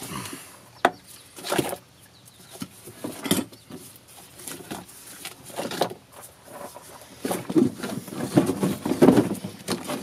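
Battery cables and a lead-acid battery being handled: scattered clicks, knocks and rustling as the cable ends are moved off the posts, with a busier run of knocks over the last few seconds as the battery is shifted in its tray.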